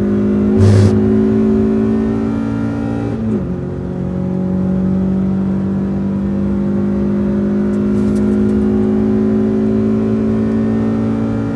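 Renault Twingo RS's 1.6-litre four-cylinder engine heard from inside the car under full throttle, its pitch climbing steadily through the revs with one upshift about three seconds in, then pulling up through the next gear. A brief loud thump comes just under a second in.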